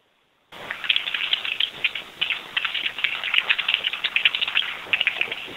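Computer keyboard typing heard over a telephone line: a fast, irregular run of key clicks starting about half a second in.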